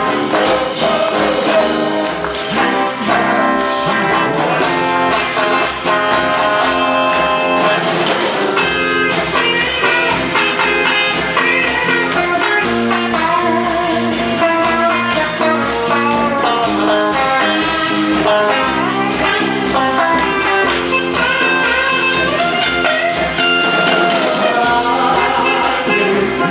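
Live band playing a song, guitar over a steady drum beat, with some singing.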